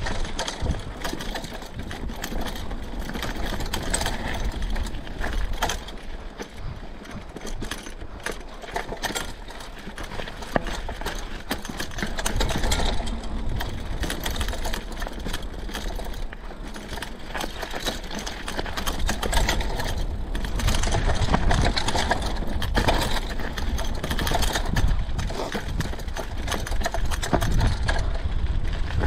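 Mountain bike ridden down a rough woodland trail: a steady clatter of tyres over stones and roots, with the bike rattling. A low rumble grows louder in the second half.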